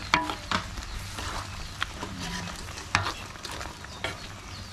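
A metal ladle stirring a thick prawn and coconut-milk curry in a black wok, knocking sharply against the pan several times, with the curry simmering underneath.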